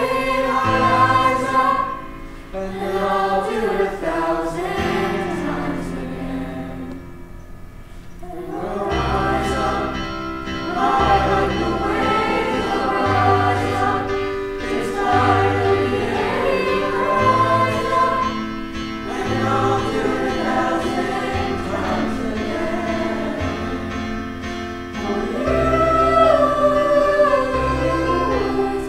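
Eighth-grade mixed chorus singing together, with sustained low notes underneath. The singing softens briefly about a quarter of the way through, then swells back up.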